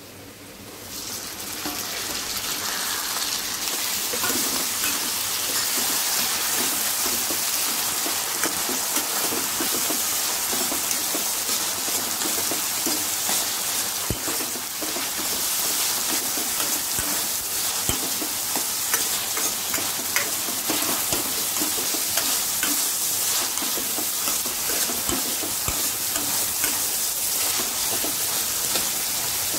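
Chopped tomatoes and onions sizzling in hot oil in a kadai, stirred with a steel ladle that clicks now and then against the pan. The sizzle grows louder over the first few seconds after the tomatoes go in, then runs steady.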